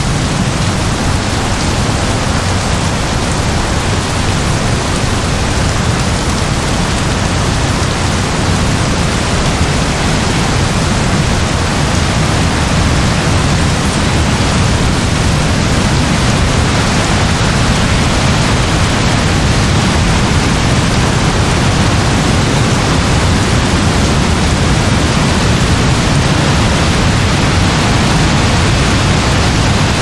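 Heavy rain falling steadily, an even, unbroken hiss of drops.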